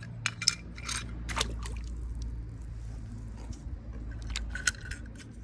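Toy cars being handled: scattered light clicks and short scrapes of plastic and metal, over a steady low hum.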